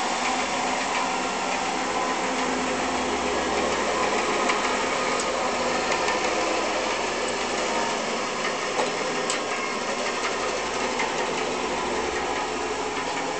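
An old 20-inch Davis and Wells bandsaw running with a steady hum, its motor and blade turning.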